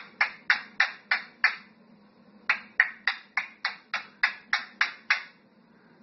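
A parrot giving a rapid run of short, harsh squawks, about three a second. There is a pause of about a second near two seconds in, then a second run that stops a little after five seconds.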